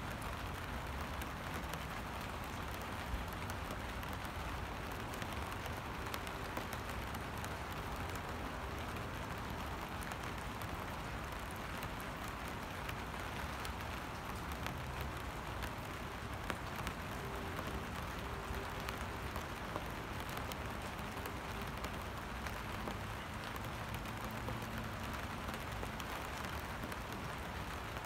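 Steady rain falling onto standing water: a continuous even hiss, dotted with many small ticks of individual drops hitting the surface.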